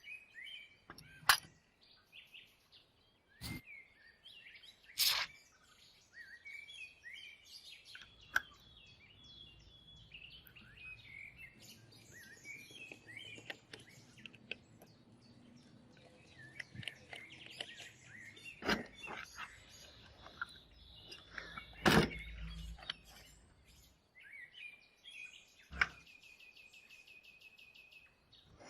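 Songbirds chirping throughout, cut by several sharp knocks and clicks a few seconds apart, from handling the parts of a 1:18 scale model car. A faint low hum runs through the middle, and a fast repeated trill comes near the end.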